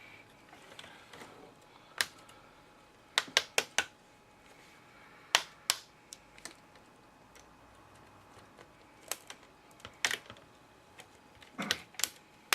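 Plastic snap clips of an HP Pavilion 15 laptop's LCD bezel popping loose as the cover is pried off: scattered sharp clicks, with a quick run of four a little over three seconds in.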